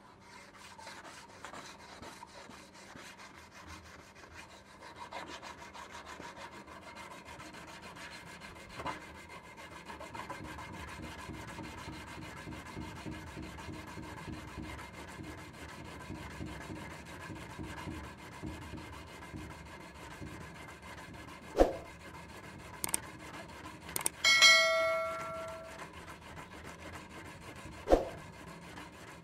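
Rusty steel sword blade rubbed rapidly back and forth by hand with an abrasive, a steady scraping as the rust is taken off. Near the end come a few sharp knocks, one of which sets the blade ringing briefly.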